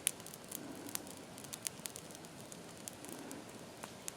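Brush-pile fire of oak tops and vine-tangled shrubs crackling: irregular faint pops and snaps over a low hiss as it burns down.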